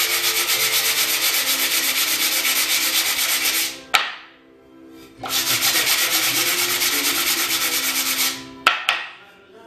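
Sandpaper on hand-held sanding blocks rubbed fast back and forth along a wooden slat, a rhythmic rasp of several strokes a second. It stops about four seconds in and starts again about a second later for roughly three seconds more, with a sharp knock at each stop.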